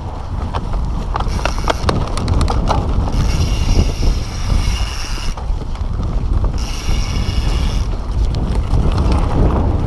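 Mountain bike ridden at speed over rough trail: heavy wind rumble on the microphone, with the bike rattling and knocking over the ground. Twice, a steady high buzz of the rear hub's freewheel ticking while coasting.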